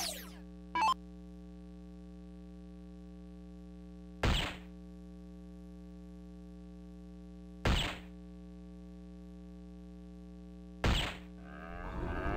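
Three soft-tip darts striking an electronic dartboard about three seconds apart, each bullseye a sharp thud followed by the machine's short falling electronic sound effect. Near the end the board's hat-trick sound effect starts and rises in level, over a steady electrical hum.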